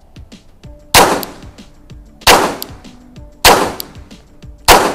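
Four single shots from a Glock 44 .22 LR pistol, fired about 1.2 seconds apart, each with a short ringing tail.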